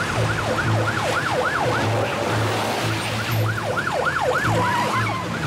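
Police car siren in a fast yelp, each short sweep falling in pitch and repeating several times a second, over a pulsing low beat.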